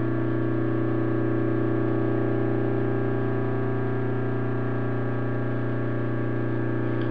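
Steady electrical hum: a low tone with a stack of higher overtones, unchanging throughout.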